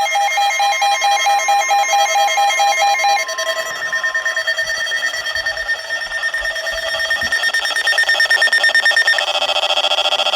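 Emergency Alert System alert tones for a severe thunderstorm warning: loud electronic beeping tones pulsing rapidly. The pattern changes pitch about three seconds in and again about nine seconds in.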